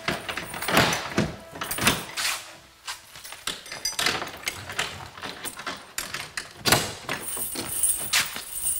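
Irregular knocks and clatter of hurried movement, with a heavy metal cell door being handled and swung open near the end.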